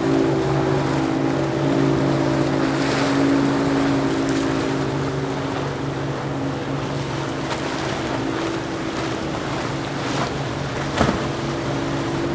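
Motorboat engines drone steadily over rushing water, wave wash and some wind on the microphone, as a Ferretti 700 motor yacht and then a Bulls Bay 230CC center-console with an outboard motor run through the inlet chop. A single sharp knock sounds near the end.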